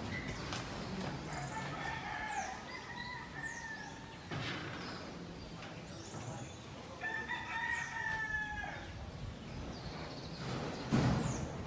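Two long drawn-out bird calls, one soon after the start and another past the middle, with short high chirps from small birds in between.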